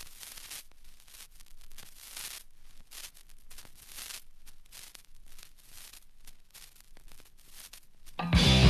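Vinyl record surface noise in the lead-in groove: a faint hiss with irregular crackles and pops. Near the end, loud hardcore punk music with distorted guitar starts abruptly.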